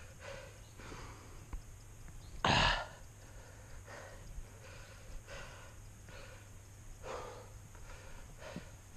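A person breathing hard in rhythmic puffs about once a second, with one much louder rush of air about two and a half seconds in.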